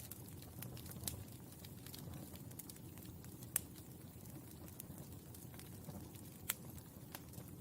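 Burning charcoal crackling: scattered sharp pops and ticks, the loudest about three and a half seconds in and again near six and a half seconds, over a low steady rumble of the fire.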